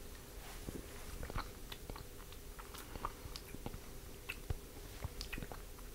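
Faint mouth sounds of someone tasting a sip of beer: scattered small lip smacks and tongue clicks.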